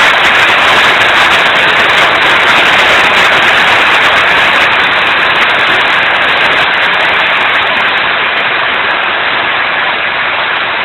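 Heavy rain pouring down steadily, a dense even hiss that eases slightly over the last few seconds.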